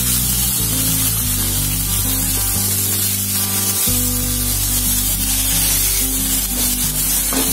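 Sprouted moth beans and chopped capsicum sizzling in a little oil in a steel frying pan as they are stirred, a steady hiss under background music with sustained low notes.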